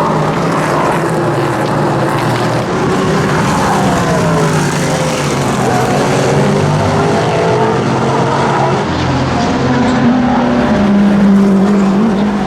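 Cadillac V-Series.R GTP prototype race cars' naturally aspirated V8 engines running at racing speed, their notes rising and falling in pitch as they pass, with several engine notes overlapping.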